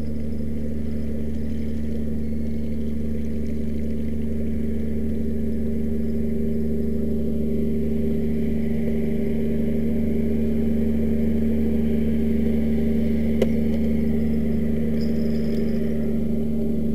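An engine running steadily at constant speed, a low hum that does not change pitch. There is a single sharp click about 13 seconds in.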